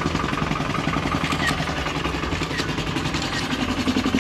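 Land Rover engine idling steadily with a rapid, even pulse, a sound that is not what one expects from a diesel.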